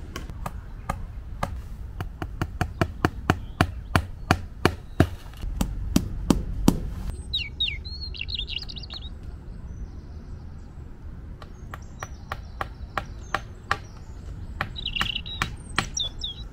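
A fast series of sharp hammer taps, about three a second, getting louder over the first few seconds and breaking off about seven seconds in, with fainter taps later. A small bird chirps twice, once just after the taps stop and again near the end.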